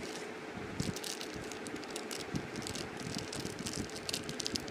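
Crinkling and rustling of a packaged paan's wrapper as it is handled and opened by hand, in many small irregular crackles over a faint steady hum.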